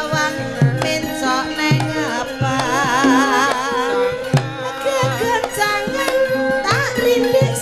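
Live Javanese gamelan-style music: a hand drum beats about twice a second under sustained pitched instruments, and a woman sings into a microphone with a wavering vibrato.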